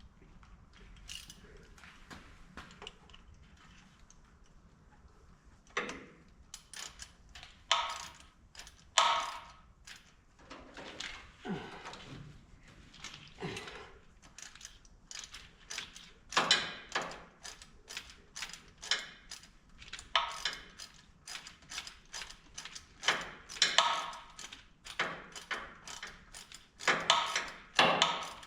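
Socket ratchet wrench clicking in runs of rapid strokes, with short pauses between runs, as bolts are turned.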